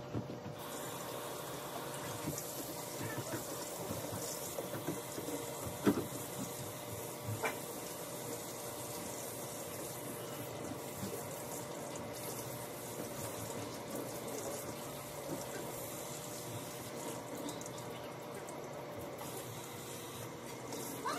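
Pull-down kitchen faucet sprayer running steadily, its water spraying through soft locs into the sink, with a few short knocks in the first eight seconds.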